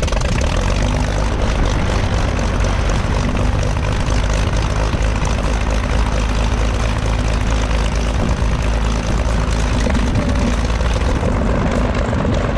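Cessna 310's twin six-cylinder piston engines running steadily at idle with the aircraft standing still, a constant propeller and engine drone.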